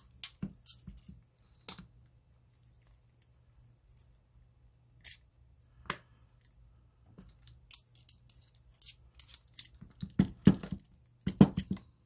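Scattered metallic clicks and scrapes of a steel padlock and a screwdriver being handled, as the screwdriver works at a screw held fast by thread-locker. A denser, louder run of clicks comes near the end.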